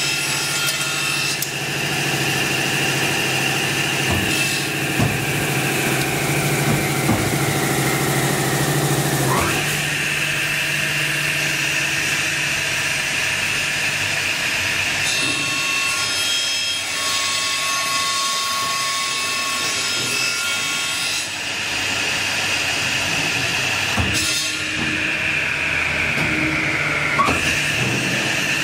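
CNC cold saw (circular sawing machine) cutting a bundle of aluminium solid bars. The blade's high whine sinks slowly in pitch over several seconds as it slows under the load of the cut, then jumps back up; this happens twice. A steady low motor hum runs underneath, with a few sharp clicks.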